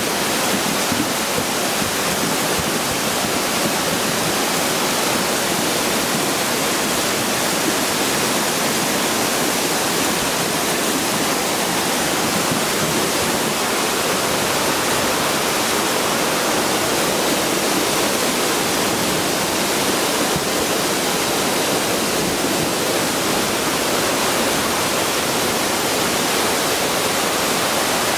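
Flash-flood water rushing down a small creek bed in a steady, loud torrent, mixed with the hiss of heavy rain.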